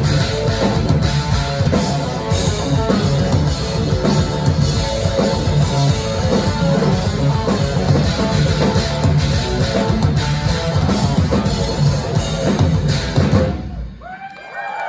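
Live instrumental rock band, with distorted electric guitars and a pounding drum kit, playing the close of a song loud and dense. The band cuts off abruptly about thirteen and a half seconds in, and a few crowd whoops rise in the last second.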